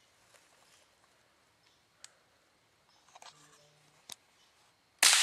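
A single .22 rifle shot at a squirrel near the end: a sharp crack with a fading echo through the trees. Before it the woods are quiet apart from a couple of faint clicks.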